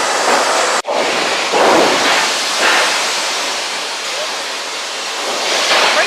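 Loud, steady noise of sawmill machinery running: conveyors, rollers and saws blending into one even noise. The sound cuts out for an instant just under a second in.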